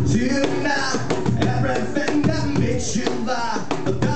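Live acoustic band: a man sings lead over two strummed acoustic guitars and a cajón beat.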